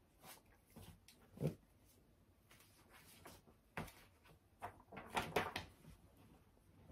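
Faint, scattered handling noises: short rustles and light knocks as a pack of comic books is taken up and opened, with a slightly louder knock about a second and a half in and a quick run of rustles around five seconds in.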